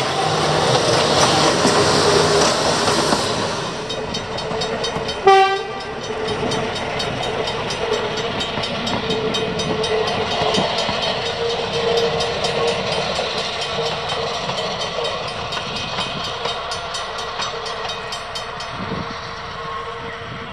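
An electric tram rumbles close past for the first few seconds. About five seconds in, a red Vulcan railcar gives one short horn toot. It then runs along the line at a distance, with a steady note over its running noise that slowly fades.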